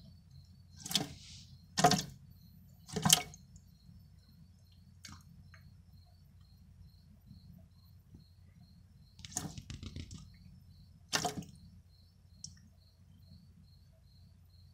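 Tiger salamander lunging and thrashing in shallow water as it seizes and pulls on an earthworm: three sharp wet splashes in the first few seconds and two more later on. Under them, a faint high chirp repeats about twice a second.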